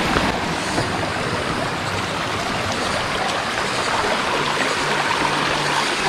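Steady rush of water flowing over rocks in a mountain stream.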